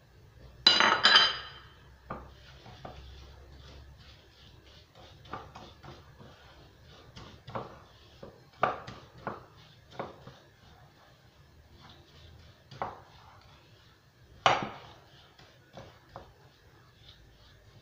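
A utensil clinking and scraping against a glass mixing bowl as butter and sugar are creamed together by hand, in irregular taps. There is a louder clatter about a second in as the sugar is tipped in, and another sharp knock on the bowl near the end.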